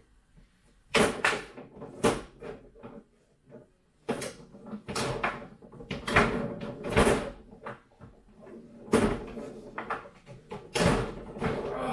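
Table football game: the ball and the spinning rods' players knocking and clacking against the table in quick flurries of sharp hits, with short near-quiet pauses between rallies.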